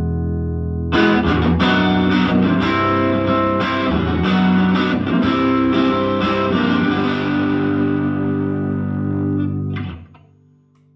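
Electric guitar played through a Silvertone 1484 Twin Twelve tube amplifier. A chord rings, then from about a second in a run of picked notes and chords follows. The playing stops suddenly about ten seconds in, leaving only a faint low ring.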